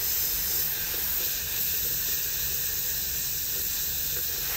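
Slow-speed dental handpiece running with a polishing bur against a crown-prepped tooth on a practice model, a steady airy hiss. This is the final polishing stage that rounds the edges and smooths the prep.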